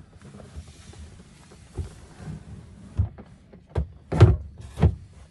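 Dull thumps and knocks as a padded vinyl boat-seat backrest is pushed and seated onto its mounting bolts, several in a row, the loudest two near the end.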